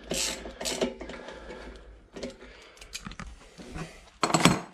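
Hand socket ratchet clicking in short runs while the bolts of a motorcycle fuel pump mounting plate are turned, with handling clatter of metal tools and parts and a louder clatter near the end.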